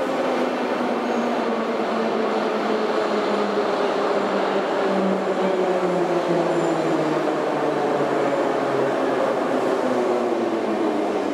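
Moscow metro train running and slowing down: a steady rumble with a motor whine that falls slowly in pitch.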